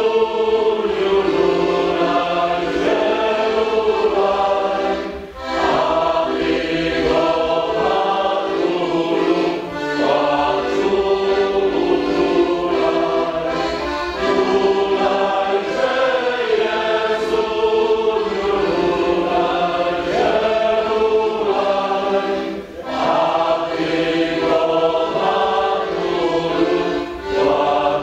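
Background music: a choir singing in long held phrases, with brief pauses between phrases.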